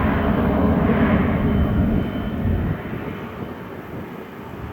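Cessna Citation XLS business jet's twin turbofan engines at takeoff power, a loud jet rush that drops off sharply about two-thirds of the way through.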